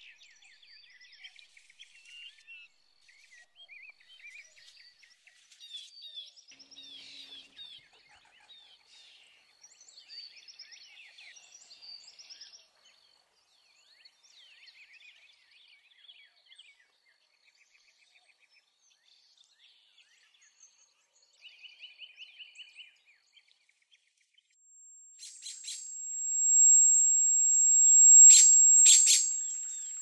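Wild birds chirping and calling, faint and varied at first, with a short rapid trill a little past two-thirds of the way through. Near the end a loud, high, steady whine sets in, and a few loud harsh calls sound over it.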